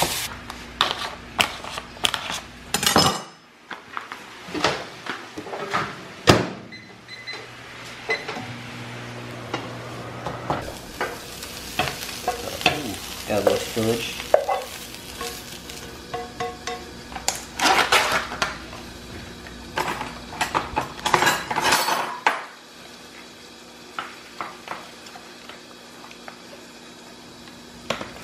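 Lean ground beef sizzling in a frying pan over high heat while a plastic spatula breaks it up and stirs it, with repeated scrapes and knocks against the pan. Later the spatula scrapes the cooked beef out of the pan onto a ceramic plate.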